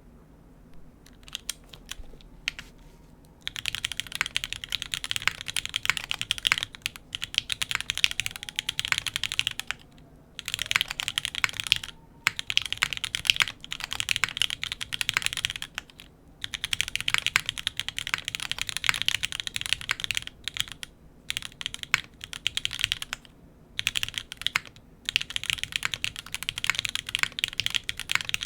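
An F1-8X custom mechanical keyboard being typed on. It has Bowl x Gateron L'Orange switches on an FR4 plate, GMK Maestro keycaps, no foam and stock lube. A few single keystrokes give way to fast, continuous typing in runs broken by short pauses.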